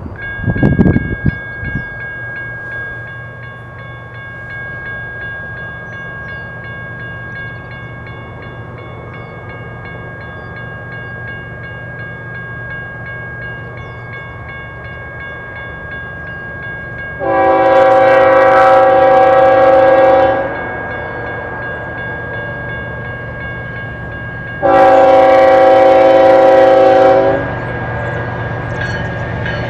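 Diesel locomotive of a BNSF container train, with a steady low engine rumble and a thin steady high whine. It sounds two long horn blasts of about three seconds each, about eight seconds apart, and a third blast begins at the very end.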